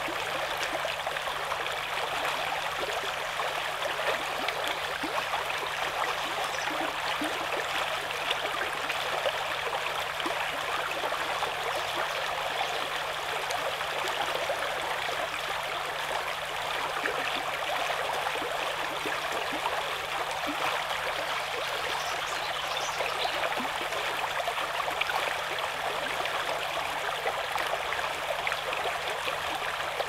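Shallow brook babbling over rocks: a steady, even rush of flowing water.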